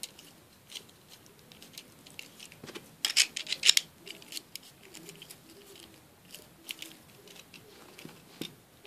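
Lego plastic pieces clicking and clattering as plates are handled and pressed back onto the remote, with a quick flurry of sharp clicks about three seconds in.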